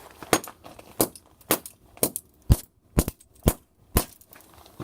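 A fidget spinner being smashed with about nine sharp blows, roughly two a second.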